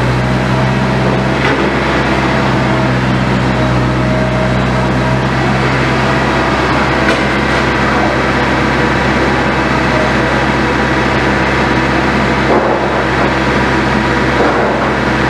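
Liebherr 924 excavator's diesel engine running steadily at working speed, with a higher whine coming and going in the first half and a few short knocks.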